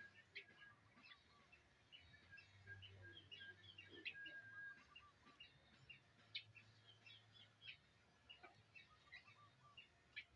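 Faint bird chirping: many short, high chirps in quick runs, with a few sharp clicks among them.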